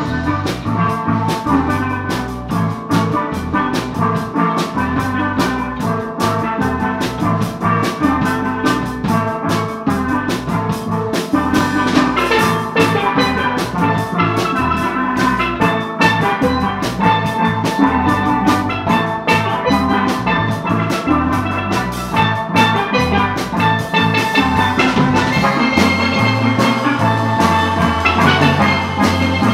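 A live steel band playing: several steel pans struck with mallets in a fast, busy rhythm, backed by an electric bass guitar and a drum kit.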